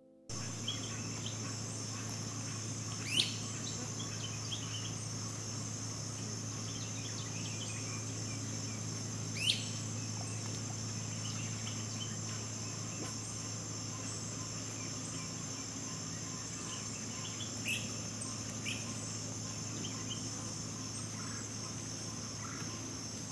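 Swamp ambience: a steady high-pitched insect chorus over a low steady hum, with a few short, sharp bird calls, the loudest about three and nine seconds in.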